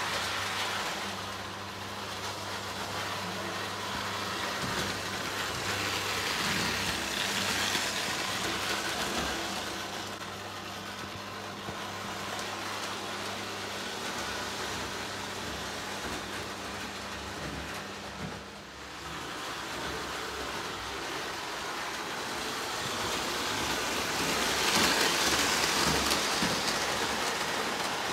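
Lionel O gauge Scout steam locomotive running on three-rail tinplate track: a steady rattling rumble of wheels on rail over a low motor hum. It swells as the train comes close, once about six seconds in and again near the end.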